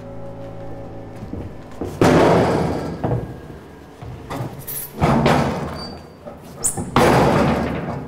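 Three loud slams or thuds, about two to three seconds apart, each with a sharp start that dies away over about a second. Lighter knocks fall between them. Background music fades out just before the first one.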